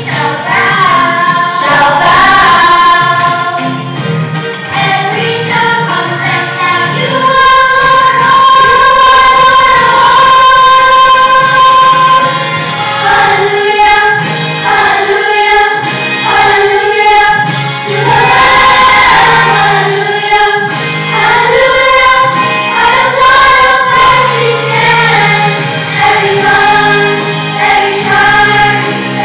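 Children's choir singing a song over musical backing, holding one long note for several seconds in the middle.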